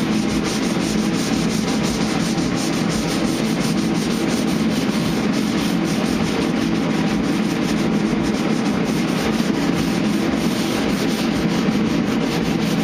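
Sandpaper on a flat hand sanding block scrubbing back and forth over a truck body panel, a steady continuous rasp of paper on paint and body filler.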